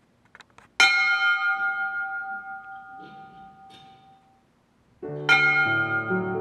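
A small ceiling-hung sanctuary bell rung by a pull cord: a few faint clicks, then one strike about a second in that rings and slowly fades. It is struck again about five seconds in, as piano chords begin.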